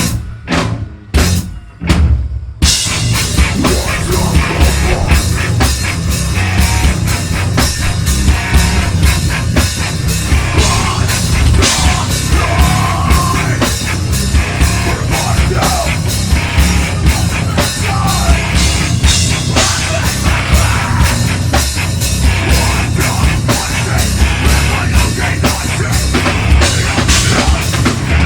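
A heavy metal band playing live, with a drum kit prominent. In the first couple of seconds there are a few short stop-start hits with brief gaps, then the full band comes back in and plays on without a break.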